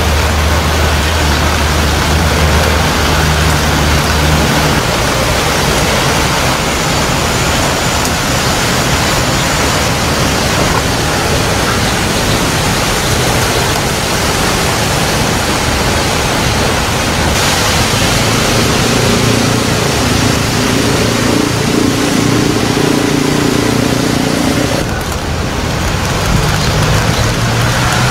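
Steady, loud rushing noise with no distinct events, with a low hum underneath for the first few seconds.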